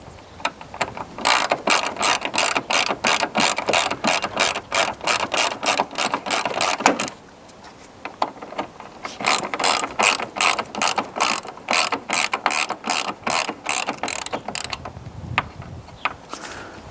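Hand ratchet wrench clicking steadily at about four to five clicks a second in two runs with a short pause between, as the bolts of a replacement bonnet latch are wound in.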